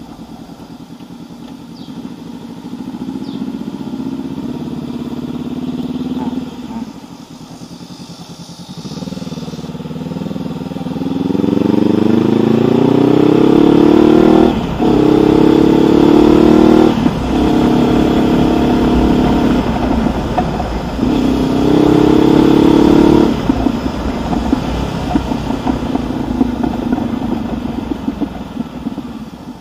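2019 Honda CB500X's parallel-twin engine through a Mivv Suono aftermarket exhaust, heard from the bike while riding. After a lighter stretch it accelerates hard through the gears, the pitch rising, with a short break at each of about three upshifts, then eases off near the end.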